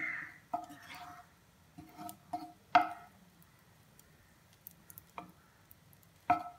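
Wooden spatula knocking and scraping on a nonstick frying pan while it spreads melting fat: a scattering of light knocks that make the pan ring briefly, the loudest about three seconds in, with a quiet stretch after it.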